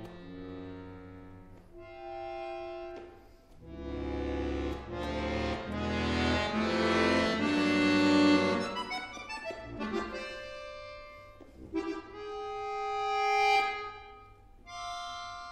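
Solo accordion playing held notes and chords of a contemporary piece, building from about four seconds in into a loud, dense chord with deep bass notes, then thinning after about nine seconds to sparser single tones that swell and fade.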